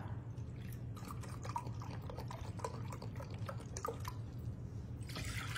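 Chicken broth pouring in a thin stream from a carton into a glass measuring cup, with small drips and gurgles as it fills. A brief rise in noise near the end.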